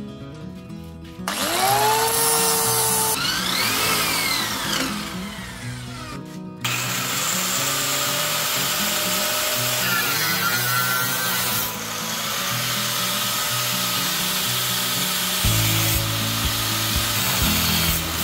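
Angle grinder spinning up about a second in, then grinding a metal exhaust flange clamped in a vise, its pitch shifting as the disc bites. It drops off briefly around six seconds, then runs steadily again.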